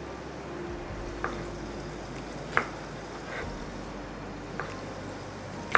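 A knife tapping a few times on a cutting board as thick green chillies are cut, each tap a short sharp click about a second apart, the sharpest near the end, over a steady low hum.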